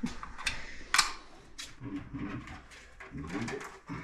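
Sharp plastic clicks and taps from a blue plastic adjustable-depth electrical box being handled, the loudest about a second in, followed by lighter ticks and knocks.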